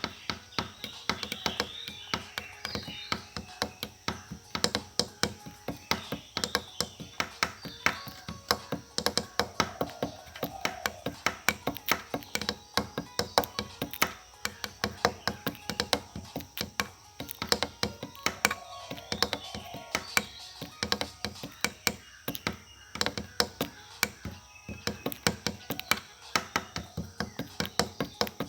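Rapid, irregular sharp taps or knocks, several a second, going on without a break, with faint voices underneath.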